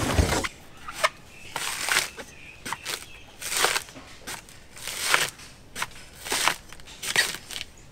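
Blade paring the fibrous green husk off a young coconut in a series of short, sharp scraping cuts, about one a second.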